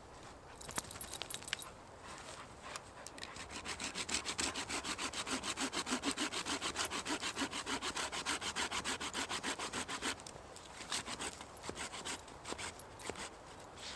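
A hand saw cutting through a piece of firewood in quick, even strokes for several seconds, stopping about ten seconds in. A sharp knock and a few clicks come before the sawing starts.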